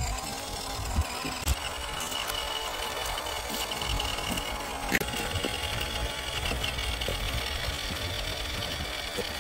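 The MN78 RC Jeep Cherokee's 280 brushed motor and gearbox whining steadily as the truck drives on gritty pavement, with a few sharp clicks about a second, a second and a half, and five seconds in.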